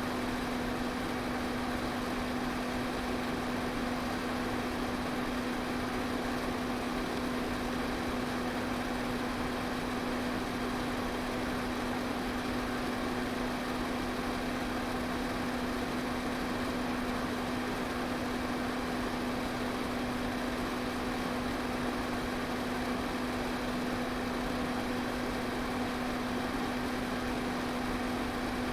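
Electric fan running steadily: an even rush of air over a constant low motor hum.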